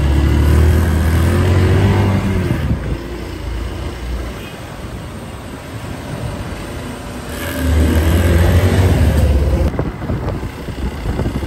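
Motorcycle engine and street traffic heard from a moving motorcycle. A low engine hum swells loud for the first couple of seconds, drops back, then swells again after about seven and a half seconds.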